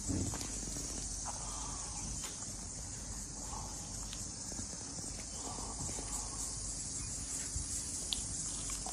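Steady high-pitched buzzing of insects, with a few faint ticks here and there.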